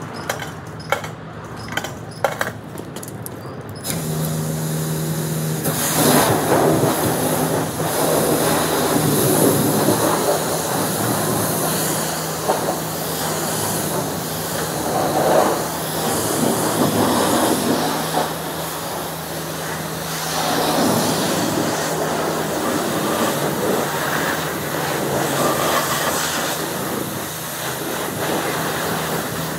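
Self-serve car wash high-pressure system: a few sharp clicks, then a steady pump hum starts about four seconds in. From about six seconds the pressure wand sprays water onto the car in a loud hiss that swells and eases as the spray moves.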